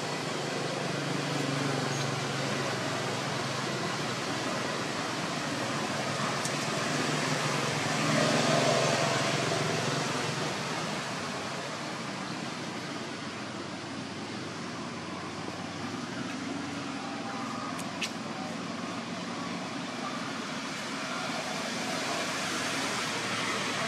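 Steady outdoor background hiss, swelling a little about a third of the way through, with one sharp click near the end.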